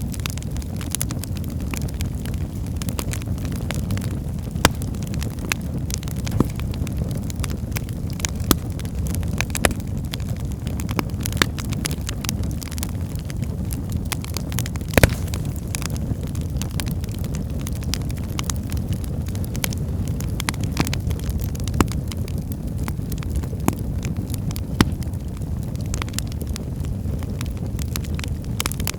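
Wood fire burning in a fireplace: a steady low rumble of flames with scattered sharp crackles and pops, one louder pop about halfway through.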